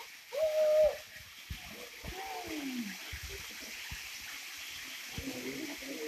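Small waterfall pouring into a rock pool, a steady rush of water. Over it a voice gives a short held cry about half a second in, the loudest sound here, then a falling cry around two seconds in, with more brief voice sounds near the end.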